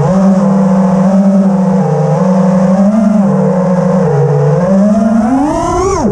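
Brushless motors and propellers of a 6S FPV freestyle quadcopter whining close to the onboard camera, the pitch stepping up and down as the throttle changes. Near the end the whine climbs sharply, then drops abruptly.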